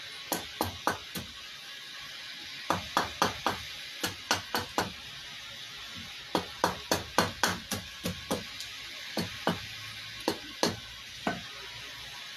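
Hatchet chopping a wooden kuksa blank braced on a stump block: sharp woody blows in quick runs of four to seven, about three a second, with short pauses between runs and single blows near the end.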